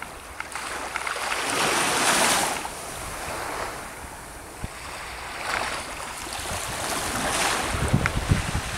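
Small waves washing in on the shore in slow swells, the loudest about two seconds in, with wind buffeting the microphone near the end.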